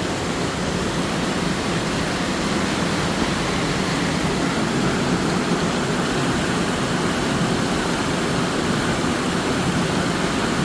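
Waterfall pouring off a rock face: a steady, even rush of falling water.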